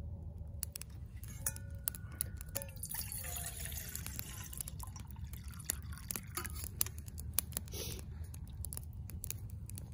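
Water poured from a metal bottle splashing into a stainless steel pot for about two seconds, starting around three seconds in, over the steady crackle of a wood fire burning in a small titanium twig stove.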